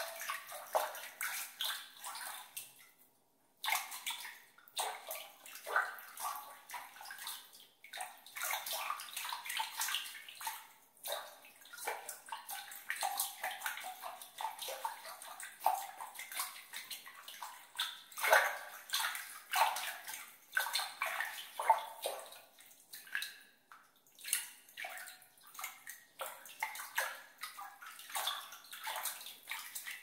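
Water being splashed and sloshed by hand in a series of irregular splashes, drips and trickles. There is a brief pause about three seconds in.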